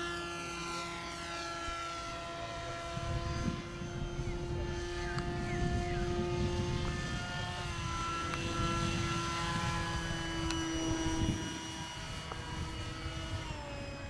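Radio-controlled model airplane's motor and propeller giving a steady, high whine in flight, rising in pitch at the very start. The pitch steps a little lower about halfway through and drops again near the end as the throttle comes back.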